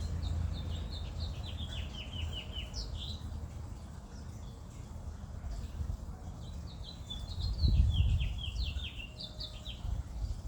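A small songbird singing two phrases, each a quick run of short downslurred notes, one at the start and a second after a pause of about three seconds. A steady low rumble lies underneath, with a louder low surge about eight seconds in.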